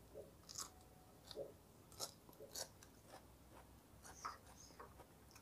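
A person eating: faint chewing with a scattering of small clicks and crunches.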